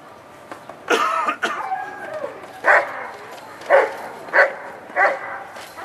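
Police dog barking at a decoy hidden in a chain-link crate, the bark alert that tells the handler a hidden person has been found. There are five sharp barks, starting about a second in and coming roughly a second apart.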